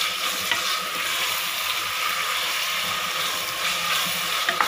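Chopped vegetables sizzling in hot oil in a pressure cooker while being stirred with a wooden spatula; a steady hiss with an occasional light scrape or tap of the spatula on the pan.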